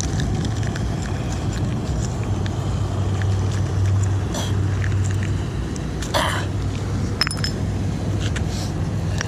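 A few metal clinks and a short scrape as scrap metal is handled off a magnet-fishing magnet, one clink ringing briefly about seven seconds in, over a steady low hum.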